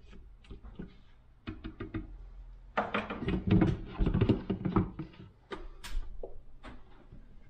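A spatula scraping and tapping inside the stainless steel mixing bowl of a Monsieur Cuisine Connect food processor, then the bowl knocking and clinking as it is set back into the machine's base. A series of short knocks, loudest and most crowded about three to five seconds in.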